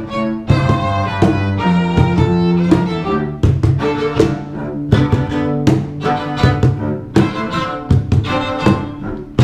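Music played on string instruments: a fiddle-like melody in quick, clearly separated notes over lower strings.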